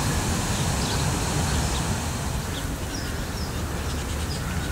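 Outdoor ambience: small birds chirping in scattered short calls over a steady low rumble.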